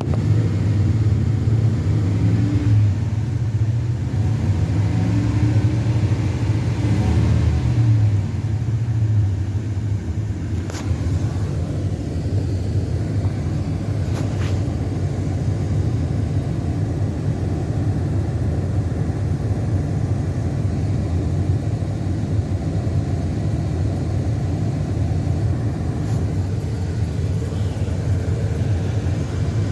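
Rebuilt 5.3-litre LS V8 running through its muffler, fitted with new exhaust manifold gaskets. Its speed rises and falls during the first several seconds, then it settles into a steady idle.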